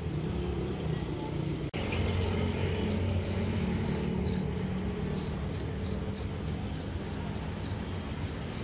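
Steady low engine rumble of motor vehicles running, with a momentary break about two seconds in.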